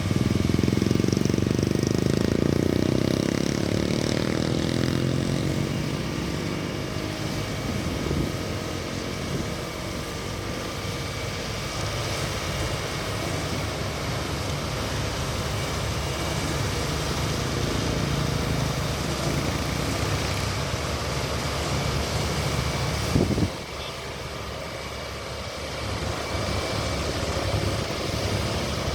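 Heavy construction machinery, a road roller among it, with its engine running steadily while working the ground. The sound is loudest in the first few seconds. A short knock comes about 23 seconds in, and the sound is quieter for a few seconds after it.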